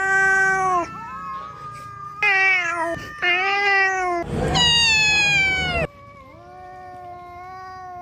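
Domestic cats fighting: a series of long, drawn-out yowls with short breaks, a harsh noisy outburst under a yowl about halfway through, then a quieter, lower, long moaning yowl.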